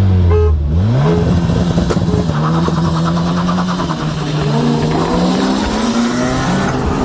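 Turbocharged Honda F20B inline-four engine of a 2002 Accord under acceleration. Its pitch jumps up just under a second in, then climbs slowly and steadily as the car pulls.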